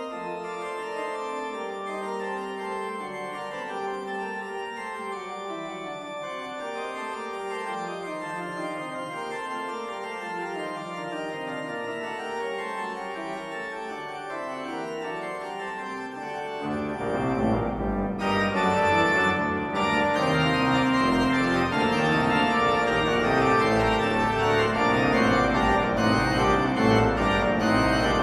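Organ music: descending runs over held notes, then about seventeen seconds in it swells louder into full chords over a deep pedal bass.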